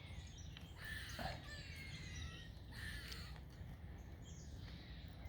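Faint bird calls, a few short high chirping notes a second or so apart, over a low steady outdoor rumble.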